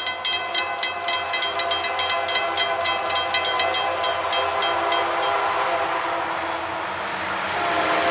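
Railroad crossing bell ringing rapidly, about five strikes a second, while the gate arm lowers; it stops about five seconds in. Under it a locomotive horn sounds steadily from the approaching train, and the train's rumble grows near the end.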